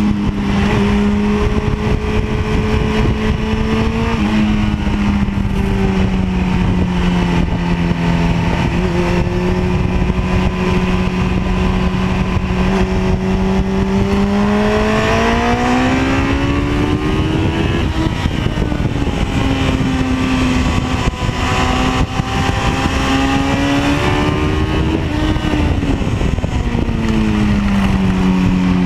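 Honda CBR900RR's inline-four engine at speed, heard from onboard over a steady rush of wind and road noise. Engine pitch holds steady for the first part, climbs over a few seconds in the middle, dips, climbs again, then falls away near the end.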